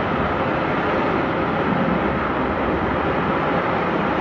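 A large fire burning at a petrochemical plant, heard from a distance as a steady rushing noise with a faint steady hum underneath.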